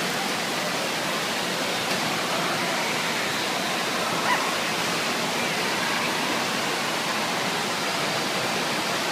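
Steady rush of water in an indoor waterpark, waves breaking in the wave pool, with a faint crowd murmur underneath.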